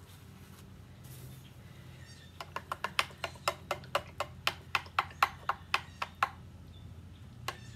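A quick run of sharp clicks or taps, about four a second for some four seconds, then two more near the end.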